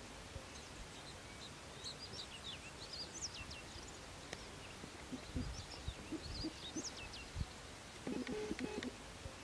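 Faint birdsong over a steady background hiss: scattered short, high chirps and quick whistled notes, several sliding down in pitch.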